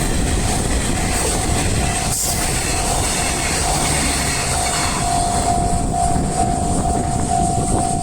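Japanese level-crossing warning bell ringing in an even repeating ding, about two rings a second, over the rumble and wheel clatter of a train passing the crossing. The bell gets louder about five seconds in.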